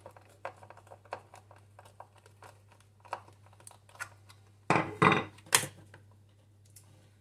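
Screwdriver working at the plastic end of a fluorescent under-cabinet light fitting, making scattered small clicks and ticks. About five seconds in come three louder scrapes or rattles in quick succession.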